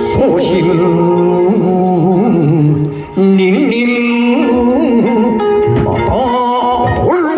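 Music: a held melody line that wavers in pitch over sustained lower notes, dipping briefly about three seconds in.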